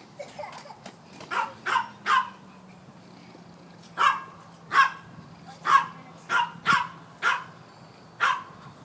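A dog barking about ten times in short, sharp barks, grouped in twos, threes and fours with pauses between.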